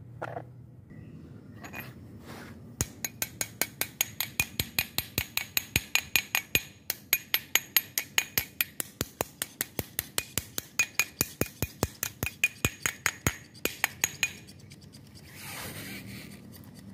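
A removed Toyota Innova fuel injector clicking rapidly, about five clicks a second with a short pause partway, as it is pulsed open and shut from battery plus and minus while carbon cleaner is pushed through it, followed by a brief hiss of cleaner spray near the end.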